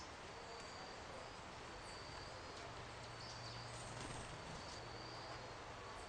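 Faint outdoor ambience: a steady hiss with a thin, high-pitched chirp repeating about once a second, and a low hum in the middle.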